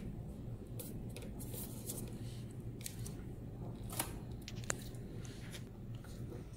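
Small clicks and rubbing from handling a plastic CRP chamber and its tubing while it is fitted into a hematology analyzer, with two sharper clicks a little past the middle. A steady low hum runs underneath.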